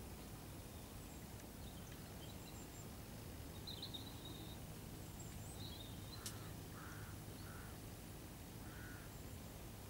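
Faint, steady outdoor background noise with distant birds calling a few short times, and a single sharp click a little past the middle.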